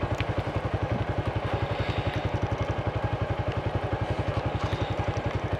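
Motorcycle engine running at low revs with a steady, even pulse of about ten beats a second.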